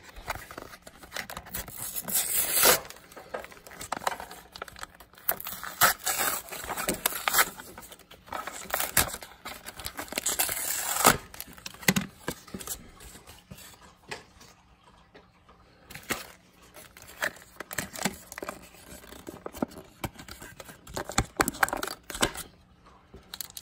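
Pokémon card blister pack being torn open by hand: irregular bursts of tearing, with crinkling and rustling of its plastic packaging.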